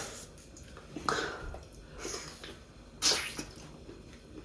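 Close-up eating noises of seafood boil in sauce: short wet slurps and mouth sounds, with a soft one about a second in and a sharper, hissy slurp about three seconds in.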